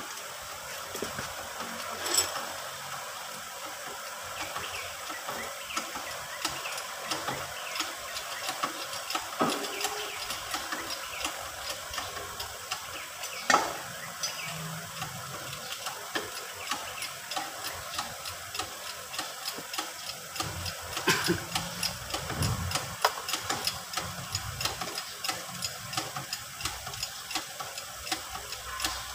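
Hand tools working on a tractor's rear axle hub: a run of light metallic clicks and taps with a few sharper knocks, the loudest about 13 seconds in. Near the end the clicks come quickly and evenly.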